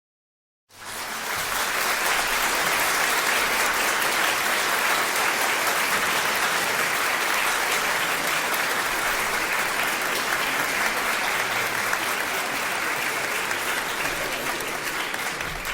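Indoor crowd applauding: dense, steady clapping that starts abruptly just under a second in and tails off near the end.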